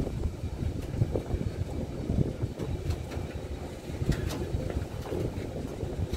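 Open box freight wagons rolling past, their steel wheels and bogies giving an uneven low rumble and clatter on the rails, with a few light clicks in the second half.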